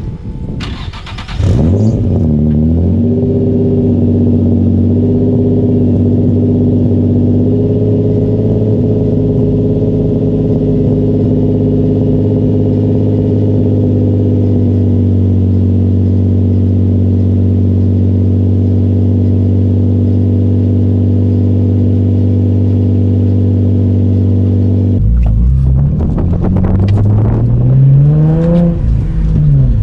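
Turbocharged Infiniti G35's V6 engine starting up, settling into a steady idle, then revved several times near the end, pitch climbing and dropping.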